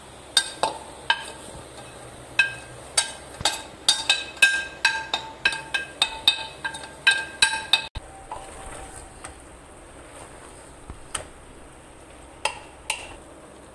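A steel spoon clinking as spices are tapped and scraped off a plate into an aluminium pressure cooker: a rapid run of sharp, ringing clinks for about seven seconds, then a few scattered knocks near the end.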